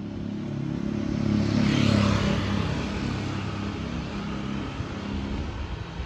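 A motor vehicle's engine running, rising to its loudest about two seconds in and then easing off, as when a vehicle passes close by.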